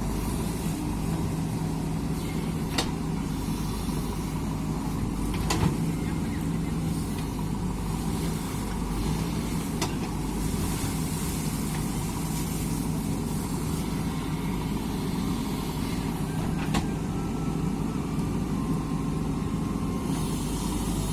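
JCB 3DX Super backhoe loader's diesel engine running steadily as the machine works, with a few sharp clicks or knocks scattered through it.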